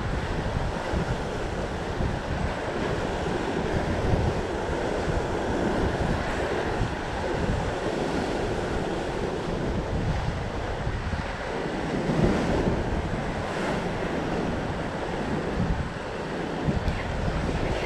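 Atlantic waves surging and breaking against a rocky cliff base, with wind buffeting the microphone. The surge swells about twelve seconds in.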